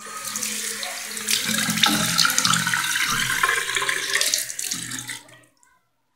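Running water that starts suddenly and stops about five seconds later.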